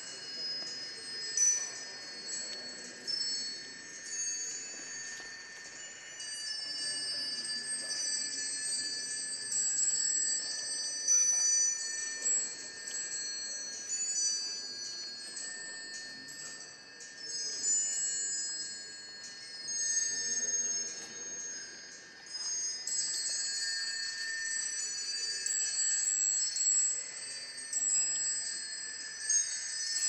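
Small bells of the Peacock Clock automaton chiming: many overlapping high tinkling tones from the bells around the owl's cage as the clockwork runs.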